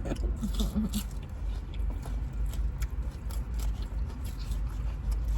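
Fork clicks and crunching from eating a salad over a steady low rumble, with a voice murmuring briefly about half a second in.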